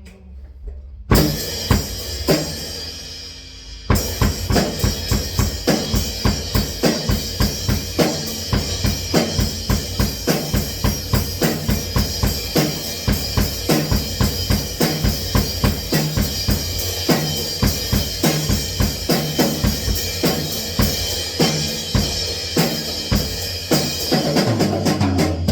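Loud drum-kit music with bass drum and snare, starting about a second in; after a short break a fast, steady beat runs on.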